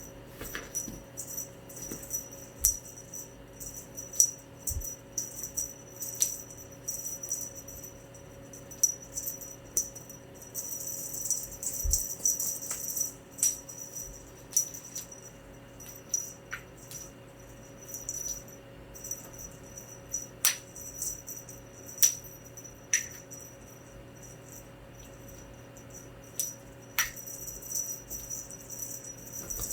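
A cat's wand toy being shaken, jingling and rattling in short bursts, with scattered sharp clicks throughout.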